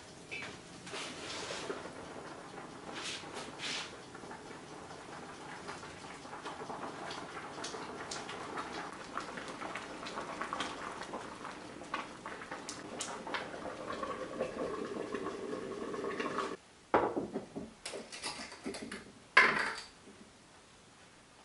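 A pot of diced potatoes and carrots bubbling at a simmer, with a wooden spatula stirring through it. After a sudden break, a few sharp clinks and rattles as a glass spice jar is handled over the pot.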